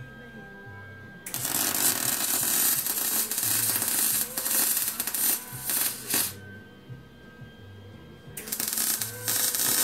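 MIG welder arc crackling while welding a steel bracket that is galvanized: one run of about five seconds starting a second in, a short pause, then a second run starting near the end.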